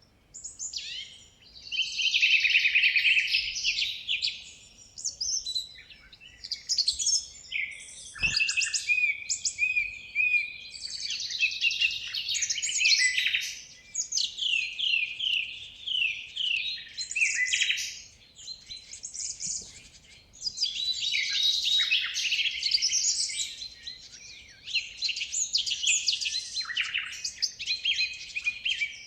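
Many birds chirping and chattering at once in overlapping bursts, broken by short lulls every few seconds.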